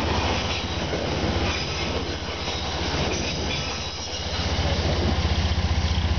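Metro-North passenger coaches rolling past over a grade crossing. The train noise drops away after about four seconds as the last car clears, and a low, rapid throbbing grows louder toward the end.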